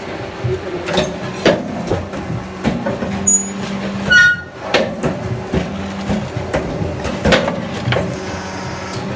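Full-bag concrete mixer running: a steady machine hum with irregular clanks and knocks. A brief high-pitched tone sounds about four seconds in.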